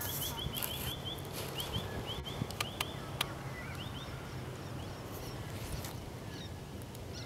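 A bird calling: a rapid run of short, high, upward chirps, about seven a second, through the first second or so, then scattered single chirps. There are a few sharp clicks around the middle, over a steady low rumble.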